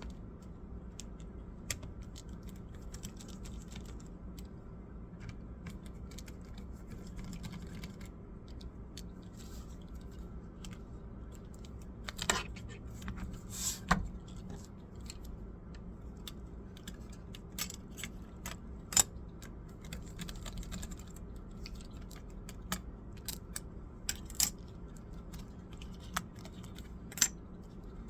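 Scattered sharp clicks and taps from hands working on a Dell laptop's parts, more frequent in the second half, over a steady low hum.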